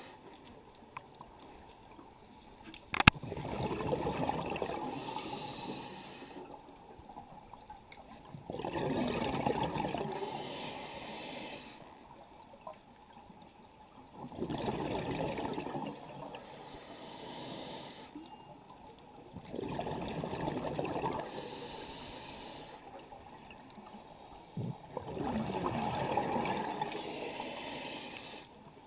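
A scuba diver breathing through a regulator underwater: five bursts of exhaled bubbles, each two to three seconds long, coming about every five to six seconds with quieter inhalations between. A single sharp click about three seconds in.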